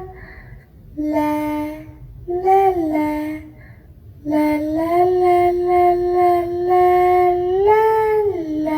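A single voice singing 'la la' in two short phrases, then holding one long note for about three and a half seconds that rises briefly near the end and falls away.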